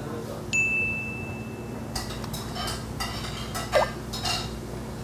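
Steak knife and fork clinking against ceramic plates several times while eating steak. This follows a steady, high electronic tone that starts abruptly about half a second in and lasts about a second and a half.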